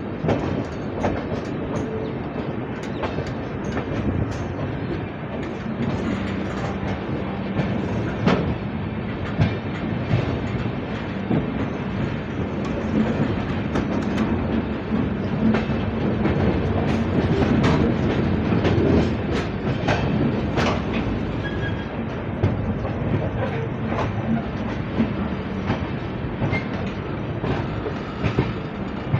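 Passenger train coaches rolling along the track, their wheels clacking irregularly over rail joints and points above a steady rumble, a little louder about halfway through.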